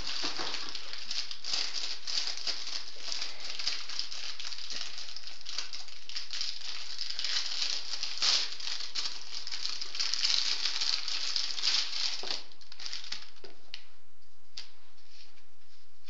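Cardboard and plastic packaging rustling and rattling as it is handled, busy at first and thinning out to a few scattered clicks after about twelve seconds.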